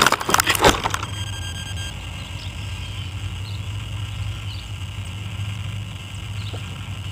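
Radio-controlled model plane touching down and skidding through grass, a loud rough scraping rustle that stops about a second in. Then a steady low hum with a faint high whine while it sits in the grass.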